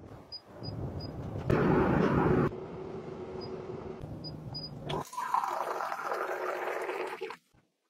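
Electric hot water dispenser running: a rushing hiss, loudest for about a second near the start, then a steadier hiss with a faint hum as the water is brought to 100 °C. About five seconds in, hot water pours from the spout into a glass, stopping abruptly shortly before the end.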